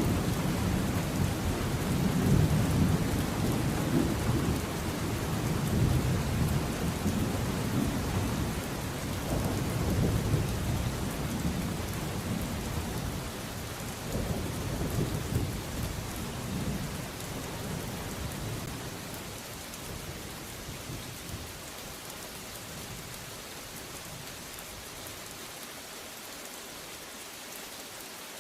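Steady heavy rain with thunder rumbling low and rolling in waves, the rumble dying away over the last third so only the hiss of rain remains.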